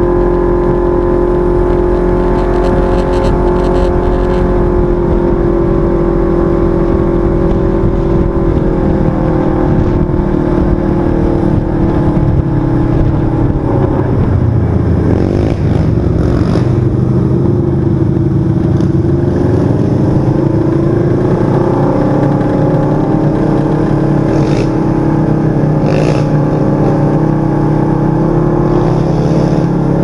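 A 1000 cc side-by-side UTV's twin-cylinder engine running at a steady cruising speed. About halfway the drone drops in pitch as the machine eases off, then holds steady again, with a few brief sharp noises from the ride near the end.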